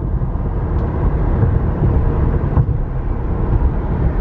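Steady road noise of a car being driven, heard from inside the cabin: a low rumble of engine and tyres on the pavement.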